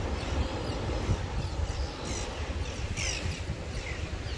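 Heavy sea surf breaking and washing against coastal limestone rocks, a steady rumbling roar of waves, with wind buffeting the microphone. A few short bird chirps sound over it, about two and three seconds in.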